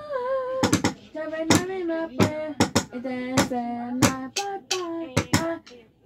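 A high voice singing held, wavering notes over a sharp percussive beat of two or three strikes a second.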